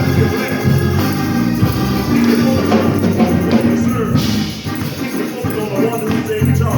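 Live gospel music in church, with singing over a band and a tambourine.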